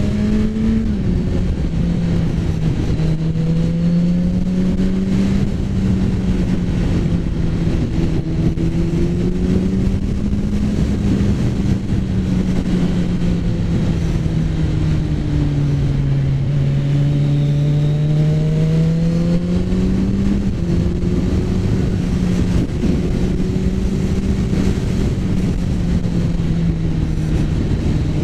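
Kawasaki Z900's inline-four engine running under way, its pitch drifting slowly up and down with the throttle and dropping suddenly twice at gear changes, about a second in and about two-thirds of the way through, over a steady rush of wind noise.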